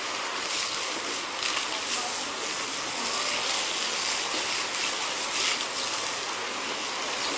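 Water spraying from a hose onto a lying elephant's wet hide: a steady hiss of spray with light splashing.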